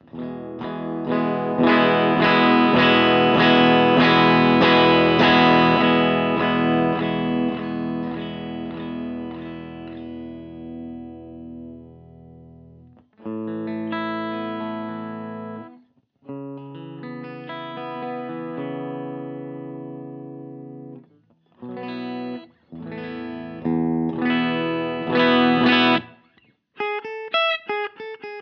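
Electric guitar with a Lambertones Grinder bridge pickup, played through a pedalboard. A chord rings out and slowly fades over about twelve seconds, then several shorter chords are struck and stopped, and quick picked single notes follow near the end.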